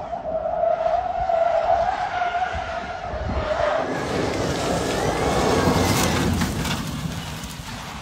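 Rally car running on electric power: a steady electric-motor whine over the rush of its tyres. About four seconds in, the whine fades as a louder rush of tyre noise takes over, with a higher whine rising and falling within it.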